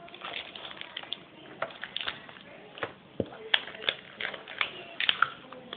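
Packaging being handled and opened: irregular crinkling with many small clicks and a few sharper snaps.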